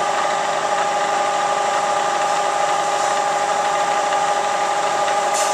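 Milling machine running with its spindle on, a steady even whine with a constant pitch while the cutter is fed in for a light cut.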